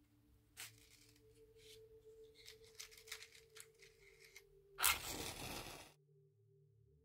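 A cardboard matchbox handled and its drawer slid open, with small scrapes and rattles of the matches inside. About five seconds in, a match is struck with a sharp scratch and flares, hissing for about a second before cutting off suddenly.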